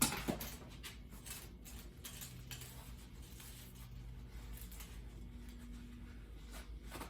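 Bubble wrap being pulled off a bottle by hand: faint plastic crinkling and rustling with scattered small clicks, a couple of sharper ones right at the start, over a steady low hum.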